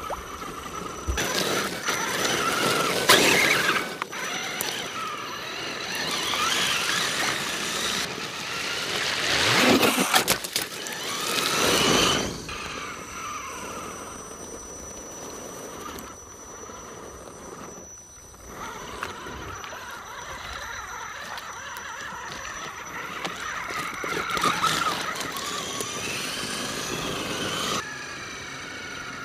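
RC rock crawler's motor and drivetrain whining as the truck crawls over and through thin ice and shallow water, with ice breaking and water splashing in bursts. The loudest bursts come about a third of the way in.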